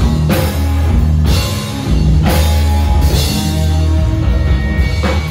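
Live rock band playing loud without vocals: drum kit with cymbal crashes, electric guitars and bass guitar.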